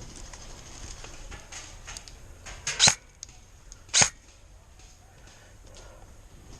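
Two short, loud, sharp sounds about a second apart, with faint clicks and rustling around them.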